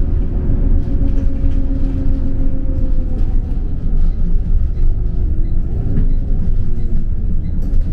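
A vehicle running, heard from on board: a steady low rumble with engine tones that slowly fall in pitch.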